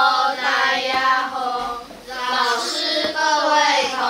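Children singing, with held notes and a short break about two seconds in.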